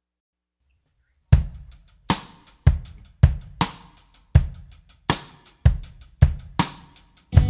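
Music: after about a second and a half of silence, a drum-kit beat starts, with kick, snare and cymbal hits at a steady mid tempo.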